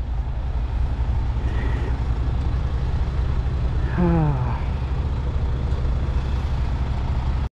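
Steady low rumble of street traffic and idling vehicle engines at a taxi rank. A person's brief falling call about four seconds in.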